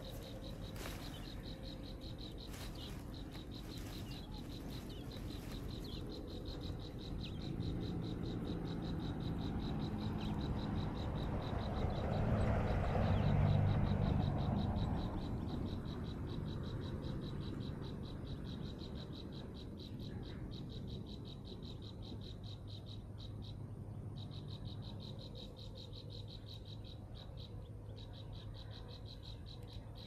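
Steady high-pitched insect trill, pulsing rapidly without a break. A low rumble swells to its loudest about halfway through, then fades.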